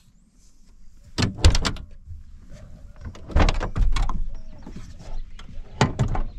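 Chevrolet conversion van's hinged double side doors being unlatched and pushed open: three clusters of sharp clicks and clunks, about a second in, around three and a half seconds in, and near the end.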